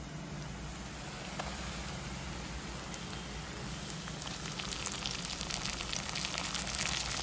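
Sliced onions frying in oil in a kadai, a steady sizzle. From about halfway through it grows louder and more crackly as chopped tomatoes go into the hot oil.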